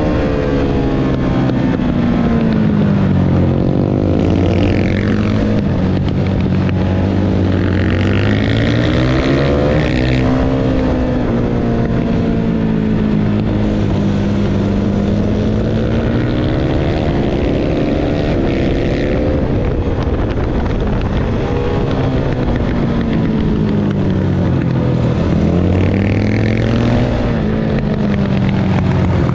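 Supermoto motorcycle engine running hard on a track, its revs climbing and dropping again and again through acceleration, braking and gear changes.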